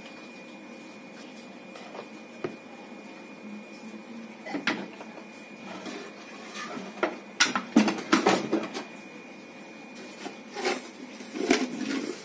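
Kitchen handling sounds: fresh greens being pushed by hand into a steel mixer-grinder jar and a plastic bowl knocked against it, scattered knocks and rustles with a cluster of clatter about seven to nine seconds in. The grinder is not running.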